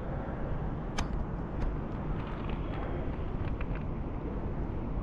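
Steady low outdoor rumble with a few faint, short ticks.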